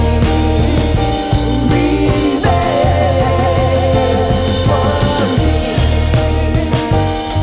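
Worship band playing a gospel song, with a singer holding a long, wavering note over steady bass notes.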